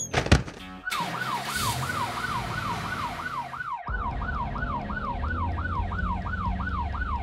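Ambulance siren in fast yelp mode: a rapidly repeating up-and-down wail, about two and a half sweeps a second, starting about a second in. A low vehicle rumble sits under it from about halfway through.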